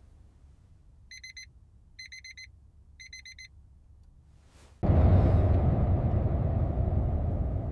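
Digital alarm beeping: three quick bursts of rapid high beeps, about a second apart. Just under five seconds in, a loud steady rushing noise starts suddenly and slowly fades.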